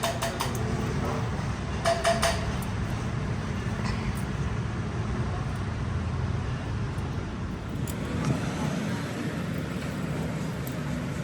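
Steady low mechanical hum of workshop machinery, with sharp metal clinks at the start and again about two seconds in, as metal parts are handled.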